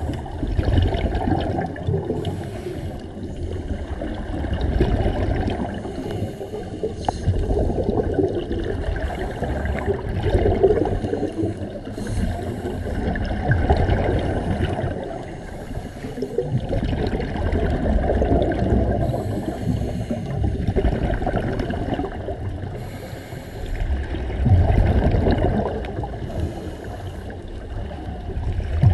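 Scuba regulator breathing heard underwater: bubbling exhaust bubbles that swell and fade every few seconds with each exhalation.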